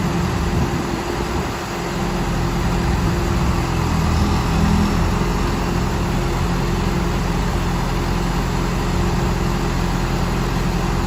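Backhoe loader's engine running steadily, with a slight swell about halfway through.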